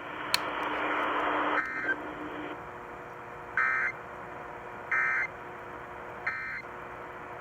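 Emergency Alert System (SAME) end-of-message data bursts heard over a radio receiver: a short stretch of static, then four short, buzzy digital chirps about a second and a half apart, marking the end of the tornado warning broadcast.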